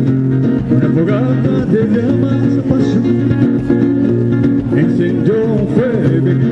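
Guitar music: picked and strummed guitars over a held low note, with a gliding melody line above them.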